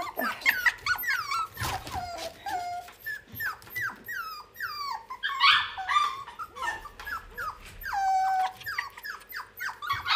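Young poodle-type puppies whining and yelping, a rapid string of short high cries that mostly fall in pitch. There is a harsher, louder cry about halfway through and a longer drawn-out whine near the end.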